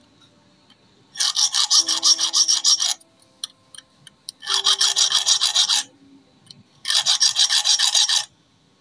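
A small hand file rasps across the worn-flat steel teeth of an overlock sewing machine's feed dog, sharpening them back to a point. It comes in three bursts of quick back-and-forth strokes with short pauses between.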